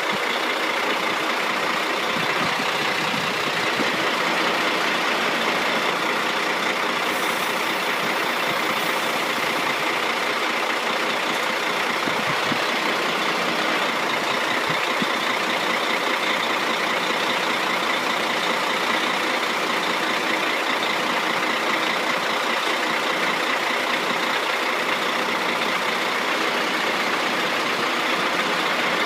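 Crane truck's engine running steadily at a constant pitch. A short high hiss comes about seven seconds in.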